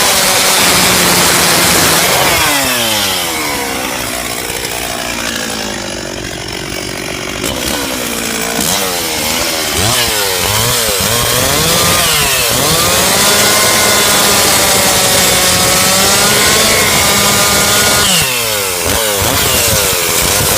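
Gas chainsaw cutting a felled tree into firewood lengths, its engine running hard. The revs drop a couple of seconds in, rise and fall several times around the middle, and dip again near the end as the saw eases off and bites back in.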